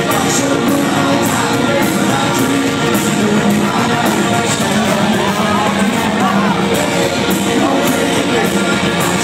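A rock band playing loud and live, with electric guitar, a steady drum beat and singing.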